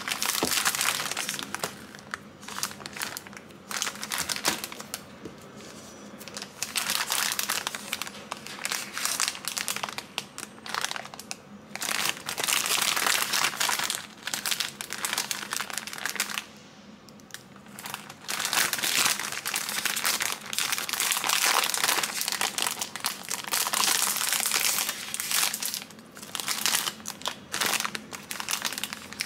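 Plastic snack bag crinkling loudly as it is handled, turned over and opened, coming in bursts with a short lull a little past the middle.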